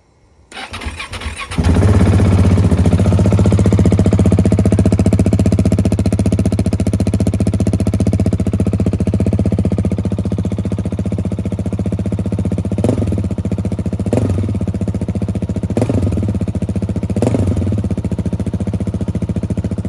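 KTM 690 Enduro's single-cylinder engine through an Arrow aftermarket exhaust, cranked and catching about a second and a half in, then idling steadily. Four short throttle blips come in the second half.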